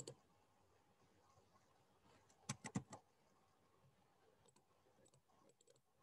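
Near silence with faint clicking at a computer. There is a quick run of about four clicks about two and a half seconds in, and scattered fainter clicks later.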